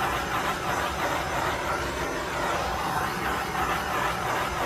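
Bernzomatic TS4000 propane torch burning with a steady hiss as its flame is swept over freshly poured epoxy to pop micro bubbles.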